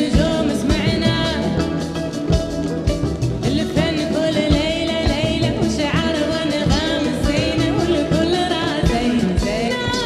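Flamenco fusion song: a singing voice over a steady drum beat.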